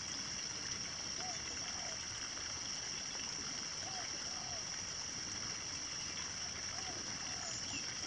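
Rural rice-field morning ambience: a steady, high-pitched insect drone over an even rushing noise like flowing water. A soft two-note animal call repeats about every two and a half seconds.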